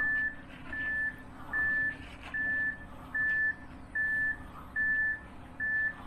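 Vehicle backup alarm beeping at one steady high pitch, about one short beep every 0.8 seconds. A faint, steady low engine hum runs underneath.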